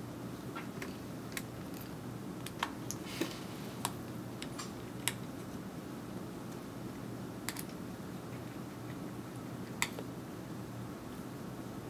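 Scattered small clicks and taps of hand tools on the parts of an iPhone 5 being disassembled, at irregular intervals, over a steady low hum.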